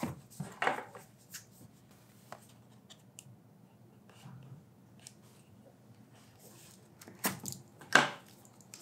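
Small cardboard stylus box being handled and opened: quiet scattered scrapes and taps, then a couple of louder knocks near the end.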